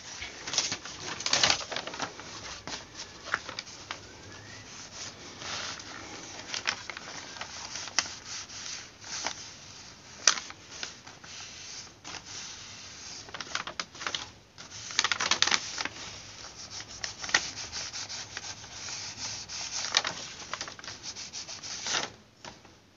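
Clothes iron rubbed back and forth over a sheet of paper laid on a jacket's taped seam, with paper and waterproof nylon fabric rustling under the hands and a few sharp clicks: heat-pressing seam-sealing tape so its glue melts onto the seam.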